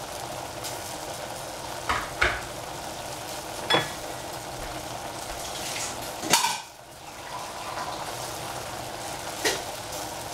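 Bok choy and mushrooms sizzling steadily in a stainless steel saucepan over a gas flame. A handful of sharp clinks break in, the loudest about six seconds in.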